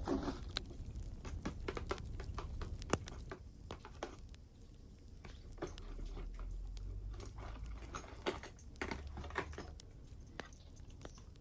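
Close-up handling sounds of decorating a small Christmas tree: scattered light clicks and taps of ornaments and branches, over a steady crackling wood-fire background.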